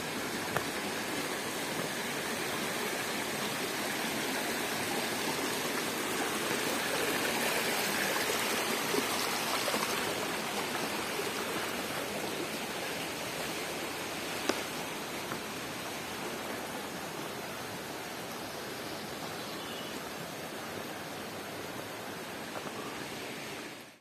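Shallow mountain stream running over rocks and gravel: a steady rush of water, with an occasional faint click. It fades out sharply at the very end.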